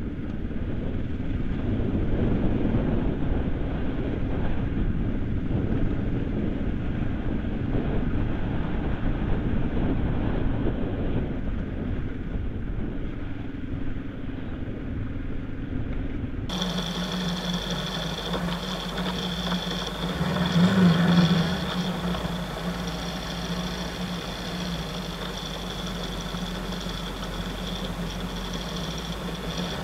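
Kawasaki KLE 500's parallel-twin engine running under way on a gravel trail, heard through an onboard camera with wind and tyre noise. About halfway through the sound cuts abruptly to a clearer recording in which the engine note is steady, rising briefly once.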